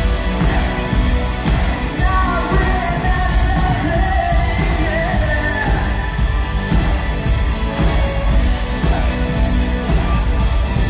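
Live pop-rock band playing loud through a venue sound system, with drums, electric guitar and a lead vocal, heard from within the audience. The singing stands out most clearly a couple of seconds in.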